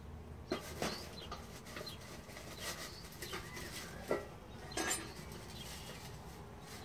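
Hands-on work at a beehive: scattered short knocks and rustles, with a longer puff of noise near the middle that fits a bee smoker's bellows being squeezed.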